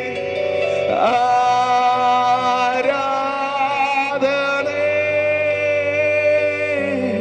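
Male vocalist singing a Kannada Christian worship song into a microphone, holding long notes with a wavering vibrato and changing pitch a few times. Steady held chords accompany the voice.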